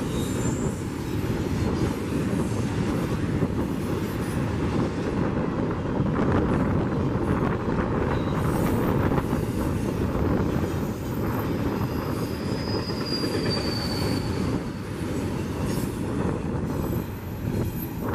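Double-stack intermodal train's well cars rolling past on curved track: a steady rumble and clatter of steel wheels on rail. Short high wheel squeals ring out, one near the start and a longer, slightly falling one about two thirds of the way through.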